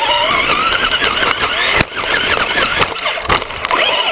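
Traxxas RC car's motor and drivetrain whining up close, the pitch rising and falling again and again with the throttle, with one sharp knock a little under two seconds in.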